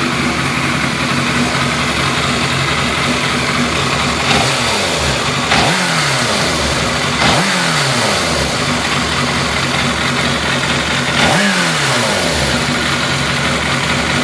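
2003 Yamaha YZF600R's inline-four engine idling warm, its throttle blipped about four times so the revs rise and fall. It runs with the funny little tick the owner hears only when warm, which he places at the back of the transmission or the bottom end.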